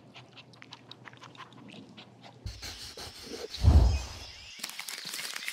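Shih Tzu panting in quick short breaths. About two and a half seconds in, the sound cuts to an intro sting: a sudden low boom with a whoosh, the loudest part, then a bright high shimmer.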